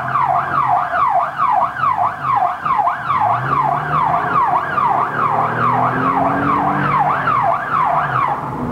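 UK police car siren, heard from inside the pursuing car, sweeping rapidly up and down about twice a second. The car's engine note rises and falls underneath.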